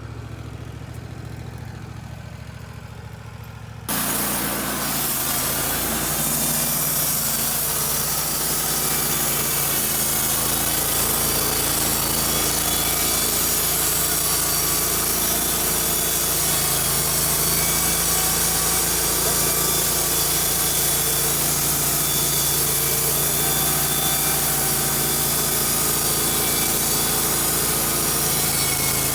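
Wood-Mizer LT15 Wide band sawmill running steadily, then about four seconds in its band saw blade is cutting through a pine log: a loud, even, hissing cut over the hum of the engine.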